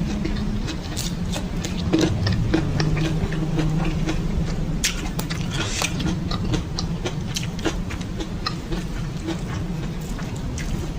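Close-miked chewing and mouth sounds of someone eating chili chicken with stink beans: many small, irregular wet clicks and smacks over a steady low hum.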